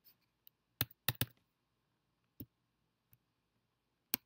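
Computer keyboard typing: a handful of separate keystrokes with uneven gaps, three close together about a second in and single ones later.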